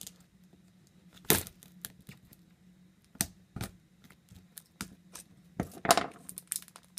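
Plastic shrink wrap around a plastic candy egg being stabbed and torn open with a pointed tool: scattered sharp clicks and crackles of plastic, the loudest about a second in and near the end.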